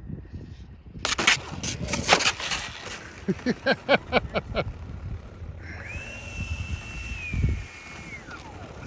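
J-65 RC jet model coming down hard, with a run of loud knocks and clattering as it hits and skids across the ground, caught by the wind on landing. Then a steady high whine from its motor that falls in pitch and dies away near the end.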